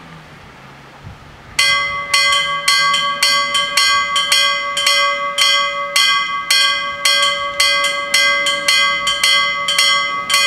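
Level crossing's electric warning bells start ringing suddenly about one and a half seconds in, then keep up rapid, steady strokes, roughly three a second, each stroke ringing on. The bells signal that a train is approaching and the barriers are about to lower.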